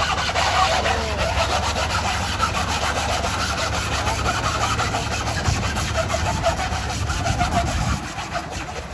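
Small flatbed truck climbing a ridged steel ferry ramp: a steady low engine rumble under a continuous rasping scrub of its tyres on the slippery ramp, easing a little near the end.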